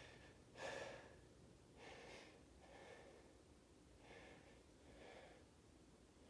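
A man breathing hard, faint exhalations about a second apart, winded and catching his breath after strenuous exercise.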